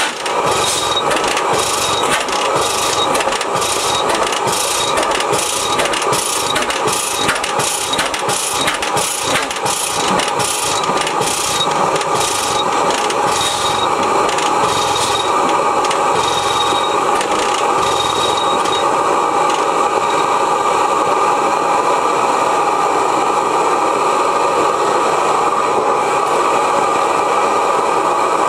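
1905 Reid 15 hp hot-tube two-cycle oilfield engine turning over on its air starter, with rhythmic beats about two a second that slow and stop about two-thirds of the way through. The propane burner heating the hot tube hisses steadily underneath.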